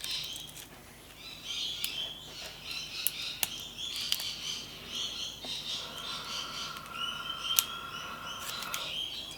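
Birds chirping in the background, with a steady held call in the middle of it from about six seconds in. A few sharp single clicks come from small metal tools working the padlock.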